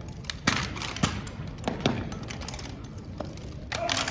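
A string of separate sharp knocks and thumps, typical of drill rifles being slapped, spun and struck down on the floor in an armed exhibition drill routine, with a small cluster near the end.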